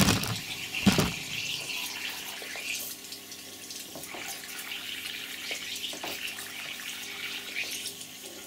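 Compressed air from a high-pressure paintball air tank bubbling out of a 3D-printed PLA part held under water, a steady fizzing bubble stream; the air is leaking through the printed plastic itself. Two splashes from the part being moved in the water, near the start and about a second in.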